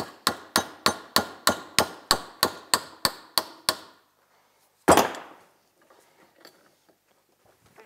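A hammer strikes a rust-seized steel end cap on a snowmobile rear axle shaft held in a vise, about a dozen quick metallic blows at roughly three to four a second, each ringing briefly. The blows stop, and a single heavier clank follows about five seconds in.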